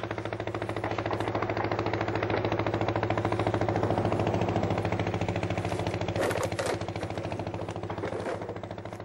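A motor or engine running with a fast, even pulse, growing louder for a few seconds and then fading, with a couple of sharp cracks about six seconds in.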